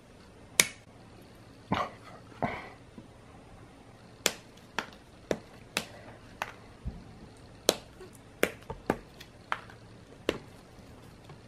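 Grey plastic model-kit sprues clicking and clattering as they are handled, about fourteen sharp, irregular clicks, the loudest about half a second in.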